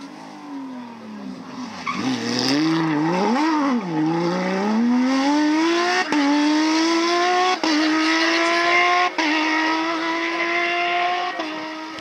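Porsche 997 GT3 rally car's flat-six engine. The revs fall as it comes in and dip and rise quickly about three and a half seconds in. It then accelerates hard, its rising note broken by four quick upshifts, and fades as the car pulls away.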